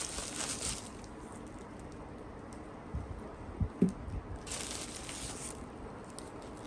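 Bubble wrap crinkling as it is handled, then a few knocks of small essential-oil bottles set down on a desk, the loudest just before four seconds in, then another short burst of crinkling.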